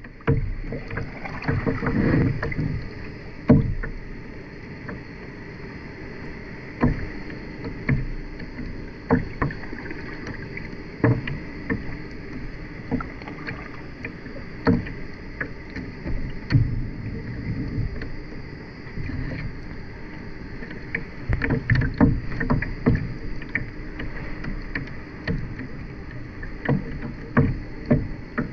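Kayak on the water: paddle splashes and water lapping, with irregular knocks and low thumps against the hull that come thicker near the end.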